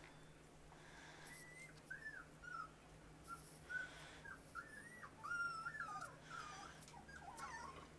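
Three-week-old Siberian Husky–Border Collie cross puppy whimpering faintly: a string of short, high squeaky whines, some bending up and down, from about a second and a half in until near the end.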